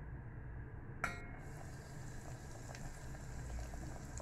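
A short metallic clink about a second in as a breaded cauliflower piece goes into hot oil in a stainless steel pot. The oil then keeps sizzling and bubbling around it.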